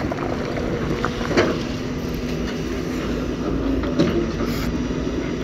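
JCB tracked excavator's diesel engine running steadily as it drags stones together, with a couple of short knocks about a second and a half and four seconds in.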